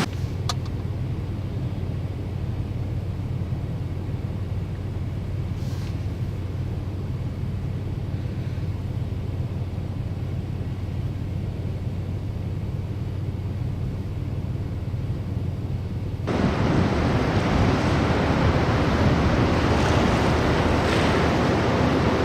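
A steady low hum, like a vehicle engine idling, for about sixteen seconds. It then switches abruptly to a loud, even rushing of strong wind and rough surf.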